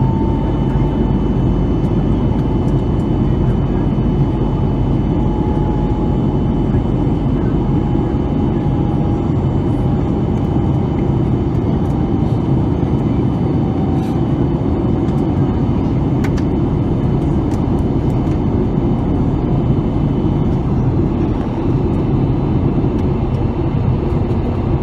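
Steady, loud cabin noise of an Airbus A320neo in flight, heard from a window seat beside its Pratt & Whitney geared turbofan: a deep, even rush of engine and airflow. A faint thin tone slowly falls in pitch through the first half.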